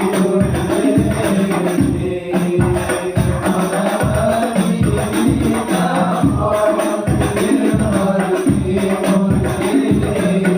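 Hadrah ensemble playing sholawat: a lead singer's voice, with group voices, over a steady, driving rhythm of rebana frame drums with jingles.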